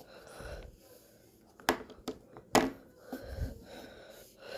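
Two sharp clicks about a second apart, with breathy rustling and handling noise around them.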